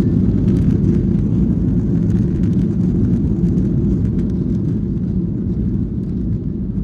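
Steady low rumble inside a jet airliner's passenger cabin, easing slowly, with a few faint rattles.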